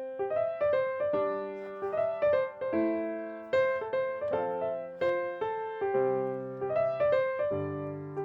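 Background music: a piano tune of struck notes, each ringing and fading, a few notes a second.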